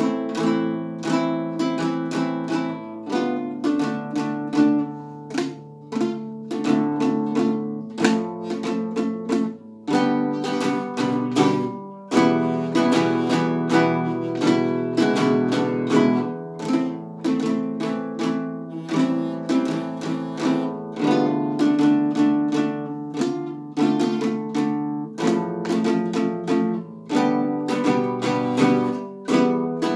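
Nylon-string classical guitar played fingerstyle: a solo study of plucked notes in a steady rhythm over ringing bass notes.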